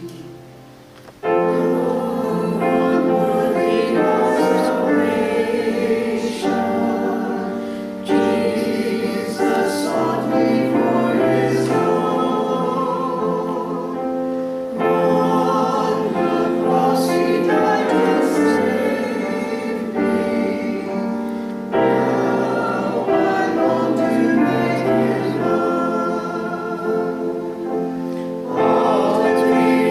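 Congregation singing a hymn with piano accompaniment, in long held phrases. The singing drops away briefly about a second in, then comes back in full.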